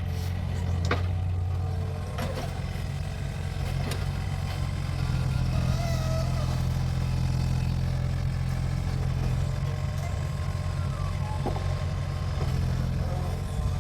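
Mini excavator's engine running steadily, with a few sharp clicks or knocks.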